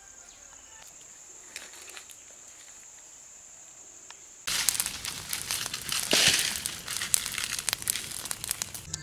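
Wood fire crackling and popping loudly under a burning banana-leaf parcel on a green-stick grill, starting abruptly about four and a half seconds in. Before it, a quiet outdoor background with a faint steady high-pitched drone and a few light handling clicks.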